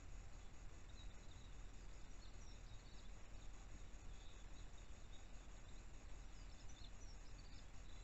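Faint steady hiss and low hum from a trail camera's microphone, with faint, short, high chirps of distant small birds about one to three seconds in and again near the end.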